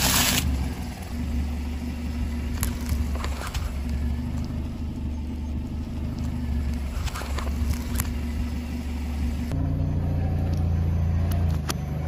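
A car's engine running low while its tyre rolls over things on asphalt: a brief loud crunch of rice cakes breaking under the tyre right at the start, then a few sharp cracks and squelches as it goes over a tube of tomato paste. After a change about two-thirds through, the engine hum continues with scattered sharp clicks near the end.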